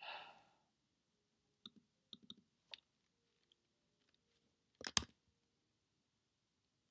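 Computer mouse and keyboard clicks: a few scattered soft clicks, then a quick run of louder keystrokes a little before five seconds in, with near silence between them.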